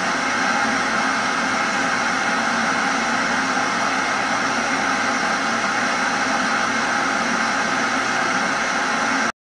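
Television static: a steady hiss of white noise that cuts off abruptly near the end.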